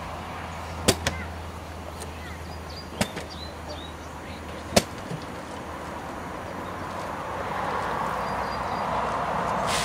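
A woven rag rug shaken out by hand, giving a few sharp snaps: two close together about a second in, two more about three seconds in, and a last one near five seconds. Over the last few seconds a soft, even noise grows louder.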